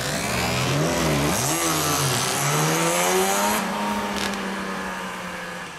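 Two-stroke 250 cc sport motorcycles revving as they pull away. The engine pitch blips up and down a few times, then climbs in one long rev, and the sound fades near the end as the bikes move off.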